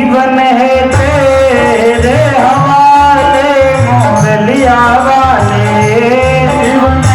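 Devotional bhajan: a voice singing a gliding melody over held keyboard tones and a steady hand-drum rhythm.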